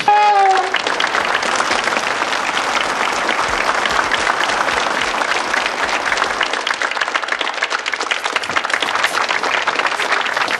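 A circus audience applauding, dense clapping from many hands that holds steady throughout. It opens with a brief falling tone in the first half-second.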